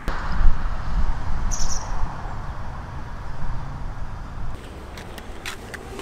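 Outdoor ambience: a low, fluctuating rumble, with a single short high bird chirp about a second and a half in and a few sharp clicks near the end.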